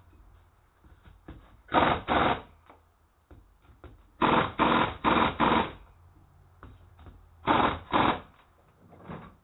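Short bursts of noise in quick clusters of two to five, from a tool driving the jacking bolts that push the stuck part off the backhoe's hydraulic swing cylinder, over a faint steady hum.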